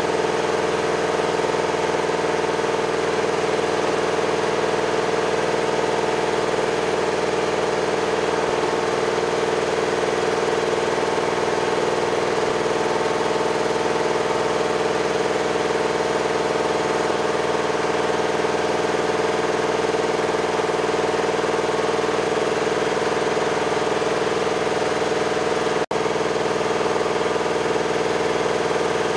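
Steady mechanical drone of running machinery, with an even hum that doesn't change and one very brief dropout near the end.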